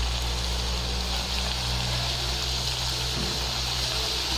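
Diamond-cut pieces of maida dough deep-frying in hot oil: a steady sizzle, with a constant low hum underneath.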